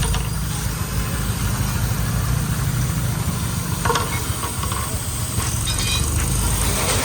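A small engine idling steadily with a low, fast-pulsing rumble. A few light metallic clinks sound about four seconds in.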